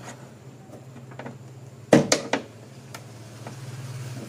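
A quick cluster of three or so sharp plastic clicks and snaps about two seconds in, as a BMW E46 kidney grille, its clips broken and glued, is pried out of the bonnet with a screwdriver. A steady low hum runs underneath.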